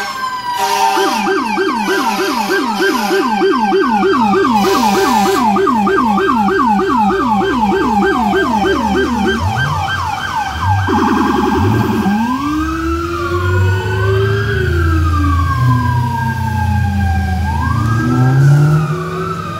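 Electronic sirens on FDNY fire apparatus, including a Federal Signal PA300, sounding a fast yelp that switches about ten seconds in to a short rapid warble and then a slow rising-and-falling wail, over a heavy vehicle engine's low rumble.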